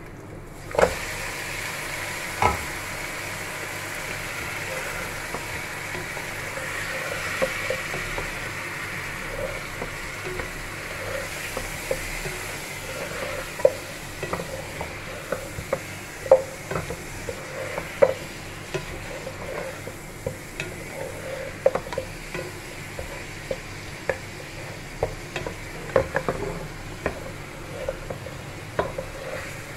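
Raw mutton pieces going into a pan of frying onions start a steady sizzle just after the start. A wooden spatula stirring the meat knocks and scrapes against the pan at irregular moments, the loudest knocks about one and two and a half seconds in.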